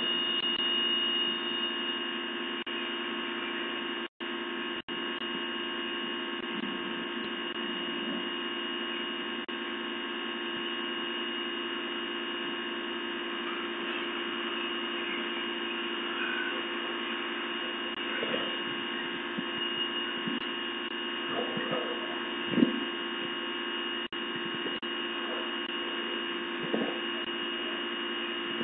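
Steady electrical hum with a high whine, picked up by a doorbell camera's microphone. A louder spray hiss dies away in the first second or two, and the sound drops out twice, briefly, around four seconds in.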